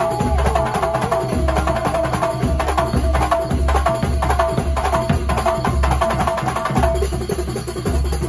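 Kuntulan music: a drum ensemble of frame drums and drums playing dense strokes over a heavy, repeating bass beat, with a held melody line above.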